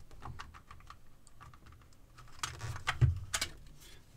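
A run of light plastic clicks and snaps as the two halves of a Craftsman cordless screwdriver's plastic housing are pulled apart by hand, the screws already out. The clicks come quick and faint at first and grow louder in the second half.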